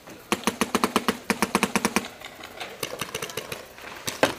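Electronic paintball marker (Smart Parts Ion XE) firing a fast string of about ten shots a second for under two seconds, with the force-feed hopper's motor whirring as it feeds, then slower single shots.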